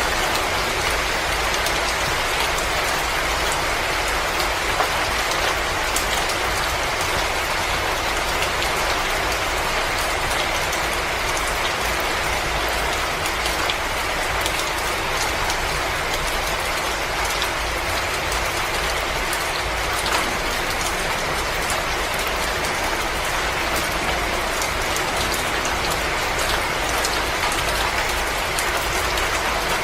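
Wood fire crackling in a fireplace: a dense, steady run of small pops and snaps over a continuous hiss.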